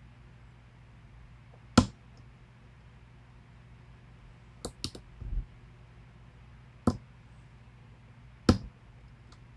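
Sharp, separate clicks from picking a pin-tumbler challenge lock: the pick and pins clicking inside the lock, about five clicks spread out, with a dull knock about halfway through.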